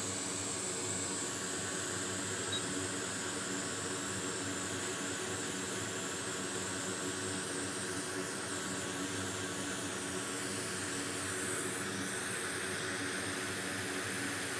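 Steady hiss of moving air from a fan or blower, with a low electrical hum beneath it.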